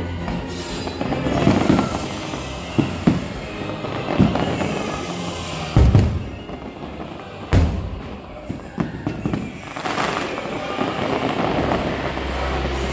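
Aerial fireworks bursting in a string of sharp bangs, the two loudest about six and seven and a half seconds in, over orchestral show music.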